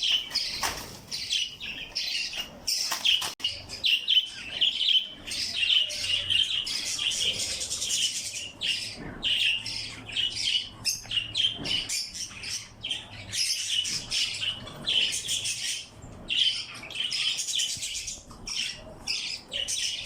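A flock of small Australian parrots chirping and chattering continuously, many high chirps overlapping with only brief dips.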